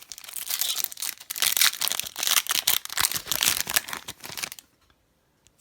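Crinkly wrapper of a trading-card pack being torn open and crumpled, a dense crackling rustle lasting about four and a half seconds, then stopping.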